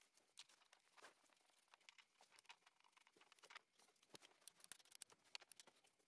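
Near silence, with faint scattered small clicks and rustles of gloved hands handling parts.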